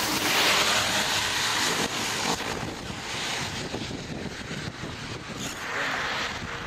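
Strong, gusty rear-flank-downdraft wind of a supercell rushing and buffeting over the microphone. It surges hardest in the first couple of seconds and gusts up again near the end.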